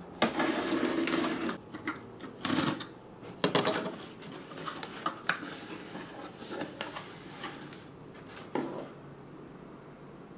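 Box cutter slitting the packing tape on a cardboard shipping box in one long scrape, then a run of shorter rustles and scrapes as the cardboard flaps are pulled open and packing is drawn out. The sounds stop about nine seconds in.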